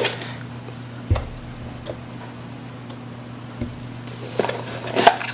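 A small cardboard box being handled and opened: a few light taps, then a quick run of clicks and rustles near the end, over a steady low hum.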